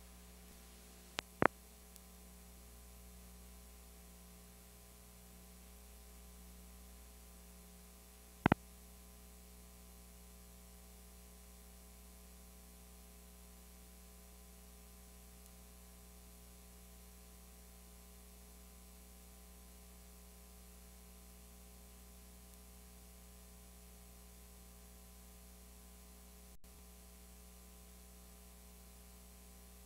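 Steady electrical mains hum with a faint hiss from an otherwise blank recording. There are two sharp clicks about a second in, a louder click about eight seconds in, and a brief dropout near the end.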